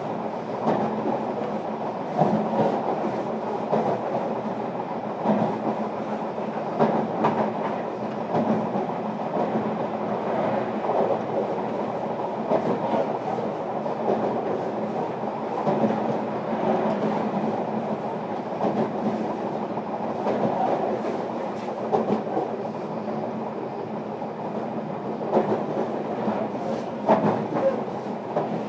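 JR Kyushu 305 series electric train running, heard from inside motor car MoHa 304-103. Its steady rolling noise and low hum are broken by irregular clicks of the wheels over rail joints.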